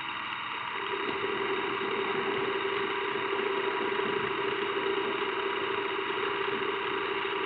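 Metal lathe running with a straight knurling wheel rolling against the spinning, oiled workpiece to form a knurl. A steady hum joins the machine noise about a second in.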